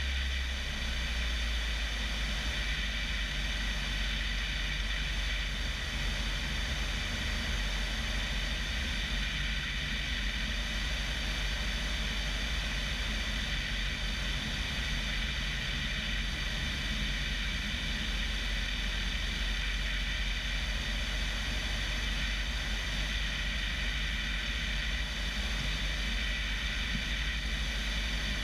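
1975 Bellanca Decathlon's 150-horsepower Lycoming engine and constant-speed propeller running steadily on the landing approach, with wind rushing past the camera mounted outside on the wing strut.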